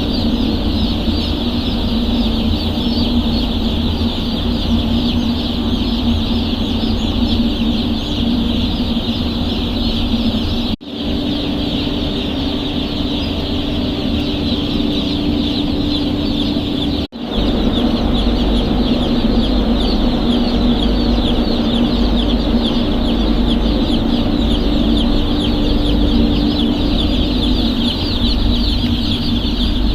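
A brooder flock of two-day-old chicks peeping continuously, many high calls overlapping into a dense chorus, over a steady low hum. The sound cuts out briefly twice.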